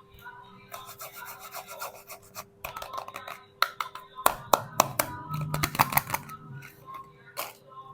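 Soap packaging crinkling and rubbing in the hands as a bar is unwrapped, with a run of sharp crackles from about the middle.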